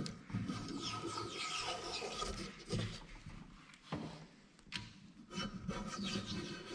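Hand plane shaving a bamboo strip held in a steel planing form: repeated rasping strokes that take off a lot of material at the roughing-out stage. The strokes stop about four seconds in, two light knocks follow, and the planing starts again a second or so later.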